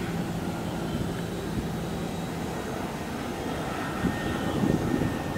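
Military helicopter flying past, a steady low engine and rotor drone, turning rougher and louder with a few uneven peaks about four to five seconds in.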